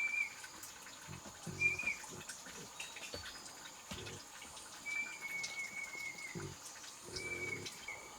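Bird chirps: several short high whistles, with one longer, slightly falling whistle about five seconds in, over a steady faint high tone. A few faint low sounds come in between.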